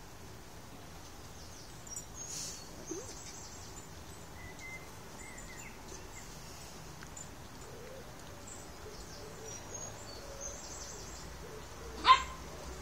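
Quiet garden ambience with birds chirping and calling at intervals, and one sharp knock near the end.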